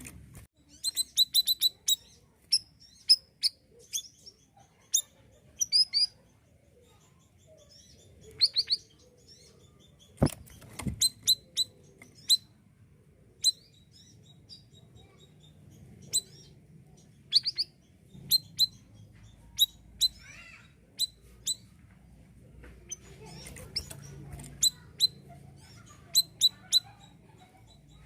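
Siri-siri bird singing: rapid, sharp, very high-pitched chirps in irregular clusters of two to five. There is a single low knock about a third of the way in.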